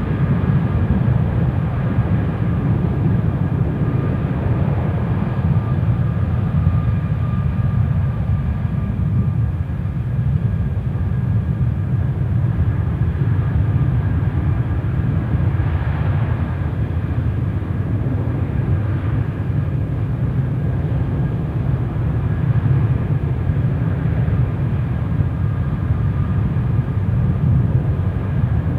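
Airbus A320-232's IAE V2500 turbofan engines running at high power in a stationary ground engine run: a steady, loud rumble with a faint whine above it.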